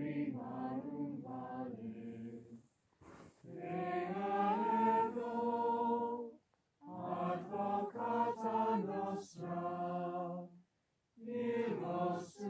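Unaccompanied voices singing a slow chant, in four long held phrases with short pauses between them.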